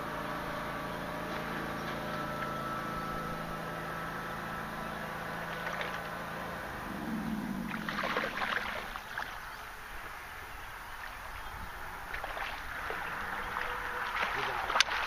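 A hooked channel catfish splashing at the surface as it is netted, about eight seconds in, then thrashing and splashing in the landing net near the end, with one sharp splash at the very end. Before that, a steady motor hum runs and fades out about seven seconds in.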